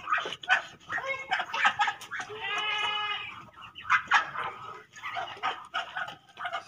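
Farmyard animals calling: a run of short calls, then one longer drawn-out call about two and a half seconds in, with scattered clicks and knocks.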